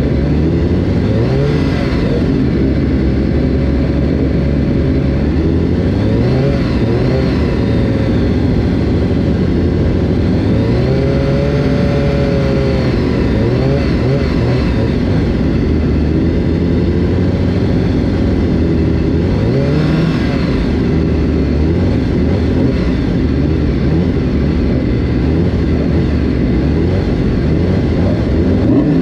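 Honda CBR1000RR-R Fireblade's inline-four engine idling on the starting grid, with a few short throttle blips that raise the revs and let them fall back, several seconds apart.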